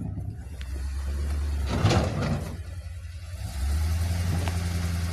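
A Ford Super Duty pickup truck's engine running as it crawls over rough off-road ground, with a loud rough rush of noise about two seconds in; from about three and a half seconds in the engine pulls harder and steadier.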